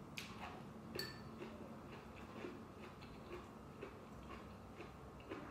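Faint eating sounds: irregular small clicks and smacks of someone eating noodles, with a sharper click about a second in.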